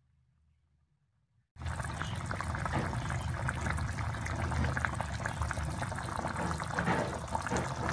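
Near silence for about a second and a half, then peanut sauce with salted fish boiling in a wok: dense, steady bubbling with many small pops.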